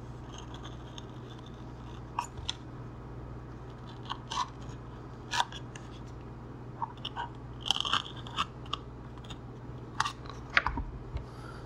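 A tool tip tracing around a GPS module on EPP foam, giving short, irregular scratchy crunches as it drags over the foam surface, over a steady low hum.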